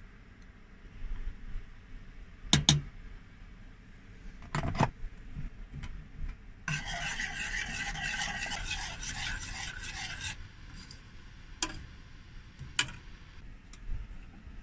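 A metal spoon clinking a few times against a glass jar and a saucepan, then scraping and stirring around inside a stainless steel saucepan for about three and a half seconds, followed by two more sharp taps.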